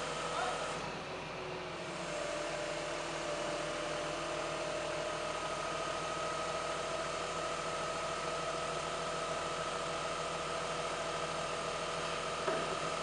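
Heavy lift truck engine running steadily, with a held whine over it. A short knock near the end.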